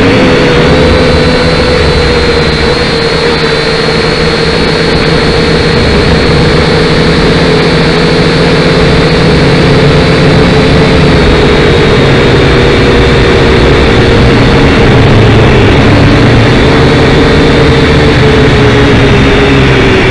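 Small drone's electric motors and propellers running in flight, heard loud from the onboard camera: a steady whine over a dense rushing noise that sags slightly in pitch in the second half.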